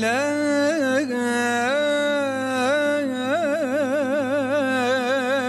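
A male voice singing a long, slow, ornamented line in Turkish classical style. The notes are held and slide between pitches, then waver quickly in a trill-like ornament from a little past halfway.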